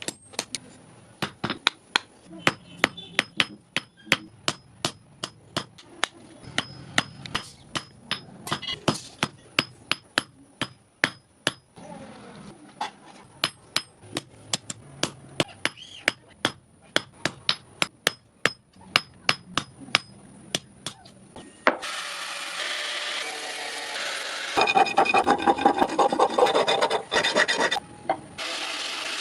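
Hand hammer striking steel on an anvil, sharp ringing blows about two a second while the cultivator's claws are forged. About 22 seconds in, the blows stop and a steady abrasive rasping on the metal takes over, louder for a few seconds near the end.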